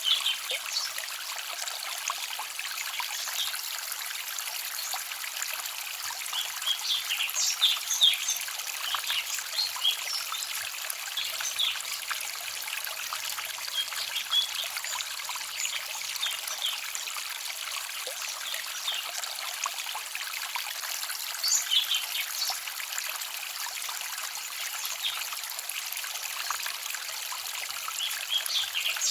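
Small forest stream trickling and babbling over stones: a steady, high, hissing rush of running water with frequent little splashes and plinks, bunching into livelier spells of splashing now and then.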